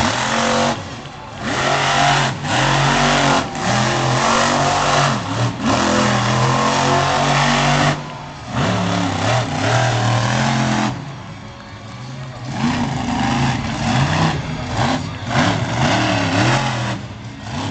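Equalizer monster truck's engine revving hard in repeated surges, with short lifts off the throttle between them. The revving runs almost unbroken for about the first eight seconds, then comes in shorter bursts.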